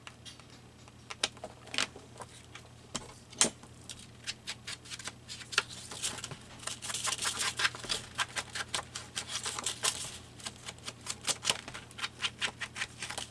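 Small scissors snipping through paper in quick, irregular clicks, with a denser stretch of snipping and paper rustle from about six to ten seconds in.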